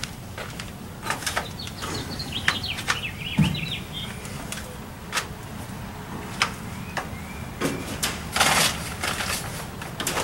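Scattered light knocks and clatter of hands working on a wooden frame, with a rustle of plastic tarp about eight seconds in. A short flurry of high chirps comes about two to four seconds in.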